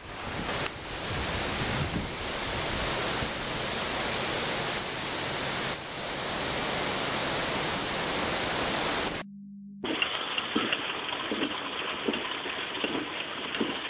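Hurricane wind and rain outdoors: a steady rushing noise of wind through the trees and on the microphone. About nine seconds in, a cut brings a duller sound of heavy rain heard from inside a car, with small irregular ticks.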